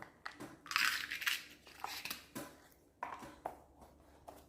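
Handling noises as jewelry and its packaging are picked up: a crinkling rustle about a second in, with scattered small clicks and taps throughout.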